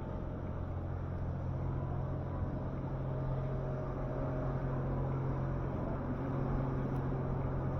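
City street traffic: a steady low vehicle engine hum, growing slightly louder over the stretch.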